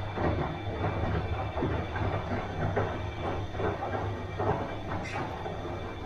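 Bosch washing machine running mid-cycle: a steady low motor hum under the irregular clatter and swish of the drum turning the wet laundry.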